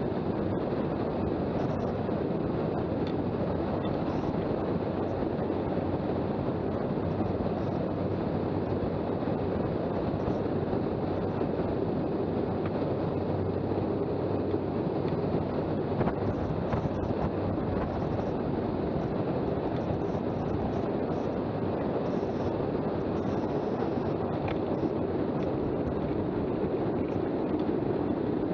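Steady rushing road noise of a street luge's wheels rolling fast on asphalt, mixed with wind buffeting the helmet-mounted microphone during a high-speed descent.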